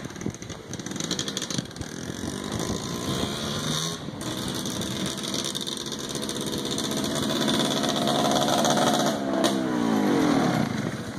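Yamaha Blaster quad's single-cylinder two-stroke engine running as the ATV rides closer, growing louder, then dropping in pitch near the end.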